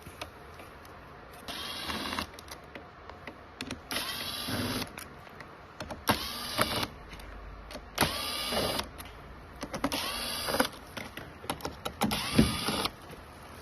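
A small electric motor whirring in short bursts, six times, each spinning up in pitch and then holding for under a second, about two seconds apart.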